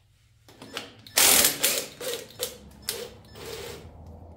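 Cordless power ratchet running in a long burst about a second in, then several shorter bursts, loosening the fasteners that hold a Ford 8N tractor's governor.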